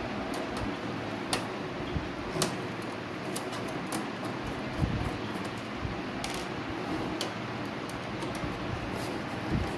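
Steady fan hum, with scattered light clicks and a few dull knocks of things being handled.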